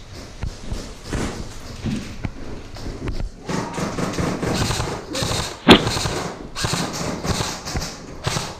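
Airsoft skirmish sounds: rustling and dull thuds of movement with muffled voices, and one sharp crack about two-thirds through, the loudest thing, typical of a single airsoft gun shot.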